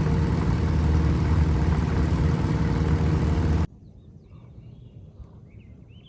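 Piper PA-18 Super Cub's piston engine running steadily, then cut off abruptly a little over halfway through. Faint birds chirp in the quiet that follows.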